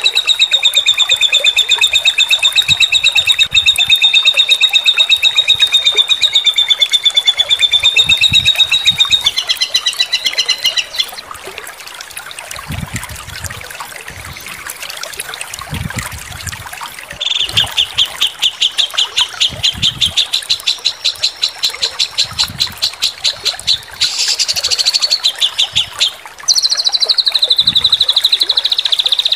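Songbird song from a masteran bird-song training track. A long, fast, wavering trill lasts about ten seconds and is followed by a quieter gap. Then comes a rapid run of repeated notes, a brief buzzy stretch, and a trill that falls and then holds steady near the end.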